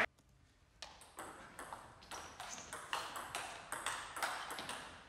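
Table tennis rally: the ball clicking off the bats and the table in a quick, even rhythm of about three hits a second, starting about a second in after the serve, each click with a short ring from the hall.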